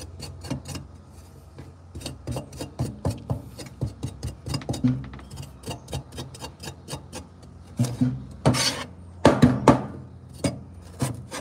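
Cleaver blade scraping the skin off a piece of fresh ginger on a wooden cutting board: a fast run of short rasping strokes, with a few louder, longer scrapes near the end.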